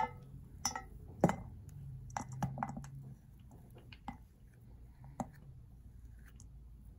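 A cup knocking and scraping against a stainless-steel mixing bowl as shea butter is scooped out into it: a string of sharp clinks, the loudest right at the start and about a second in, ending after about five seconds.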